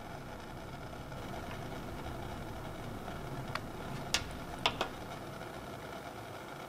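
A steady low mechanical hum throughout, with four short sharp clicks a little past the middle as a knife blade ticks against a small mold held in the hands.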